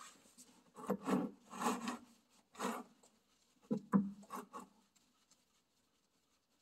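Gloved hand rubbing and scraping against the tractor's oil pan while turning out a loosened drain plug, in a run of short scrapes that stops after about four and a half seconds.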